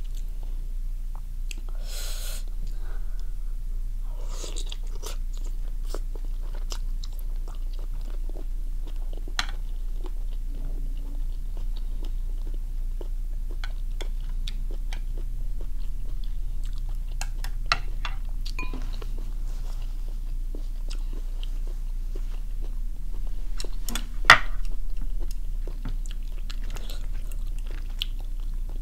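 Close-up chewing and biting of steamed squid and salad, with scattered crunches and clicks, the sharpest a little past two-thirds of the way through, over a steady low hum.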